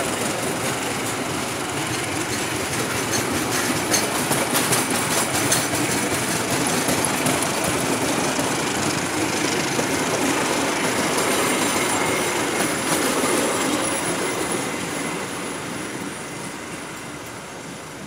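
Passenger train coaches rolling past close by: steady wheel-on-rail rumble with clicking and clatter over the rail joints. The sound fades away over the last few seconds as the last car goes by.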